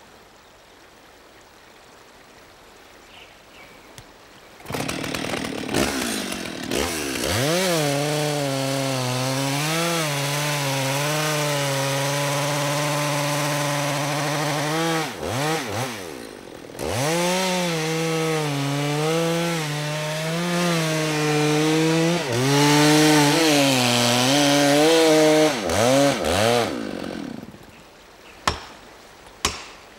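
Two-stroke chainsaw starting about five seconds in and making the back cut through a conifer trunk to fell it, its engine pitch sagging and recovering as the chain bites, with a short drop-out midway. The saw stops near the end, and two sharp blows follow: an axe driving felling wedges into the cut.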